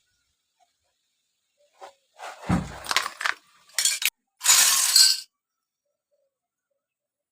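Small hard miniature toy kitchen pieces clinking and rattling as they are handled, in a few short bursts from about two to five seconds in, the last the loudest.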